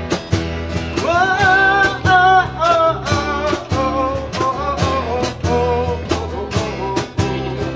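Live band music: an acoustic guitar strummed in a steady rhythm over an electric bass, with a man singing the melody from about a second in.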